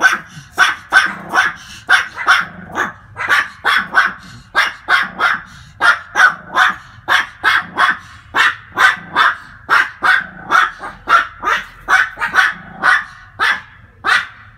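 Pomeranian dogs barking without pause, short sharp barks at about two to three a second.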